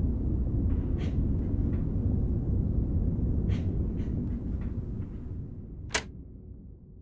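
A dense, low rumbling drone that fades away over the last couple of seconds, with a few faint soft taps in it. About six seconds in comes a single sharp click, the button of a Sony portable stereo being pressed just before it starts playing.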